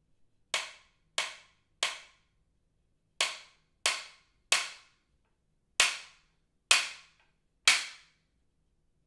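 JKP slapstick, the orchestral whip made of two hinged wooden boards, snapped shut nine times in three groups of three. Each stroke is a sharp crack with a brief ring. The last group is spaced a little wider and is slightly louder.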